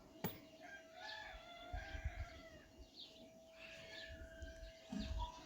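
A rooster crowing once, a drawn-out call starting about a second in, after a single sharp click just before it.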